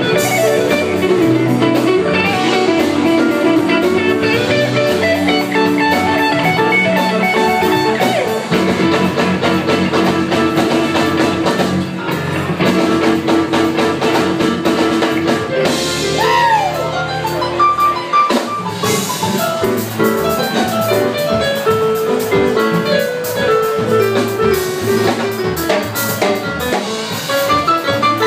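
Band music with guitar and drums playing.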